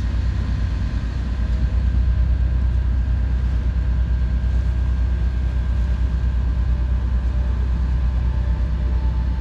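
Sailing yacht's inboard diesel engine running steadily while motoring, a low even drone.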